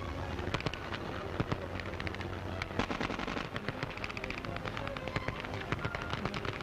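Combat sound of small-arms fire: a dense, irregular crackle of rifle and machine-gun shots, several a second, over a low rumble.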